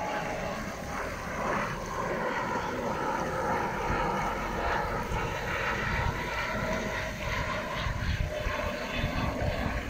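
Steady engine drone over a low rumble.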